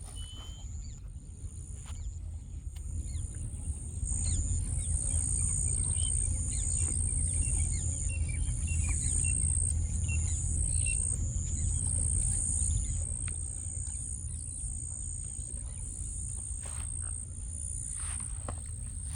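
Outdoor ambience: a high insect drone that pulses on and off, over a low rumble that swells about four seconds in, with faint scattered bird chirps.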